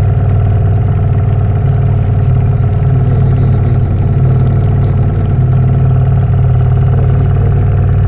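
Boat motor running steadily at an even pitch, with no change in speed.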